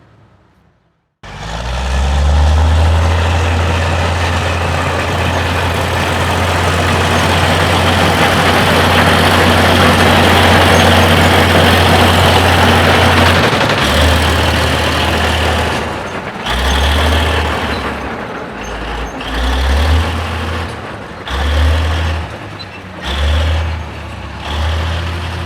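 Heavy diesel engine of a large construction vehicle starts up abruptly and runs loud and steady, then revs in five or six short surges a second or two apart.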